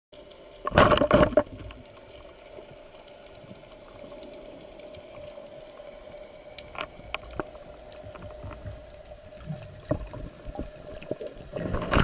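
Underwater sound on a spearfishing dive: a steady hum with scattered small clicks, and two loud rushes of water noise, one about a second in and one near the end.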